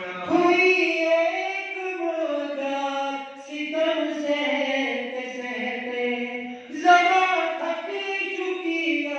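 Unaccompanied men's voices chanting a munajat, a devotional supplication, in long held melodic phrases. There are short breaks about three and a half seconds in and again near seven seconds, where the next phrase starts loudly.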